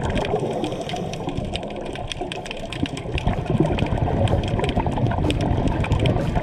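Muffled underwater rushing and bubbling picked up by a GoPro inside its waterproof housing on a scuba dive, with many short sharp clicks scattered through it.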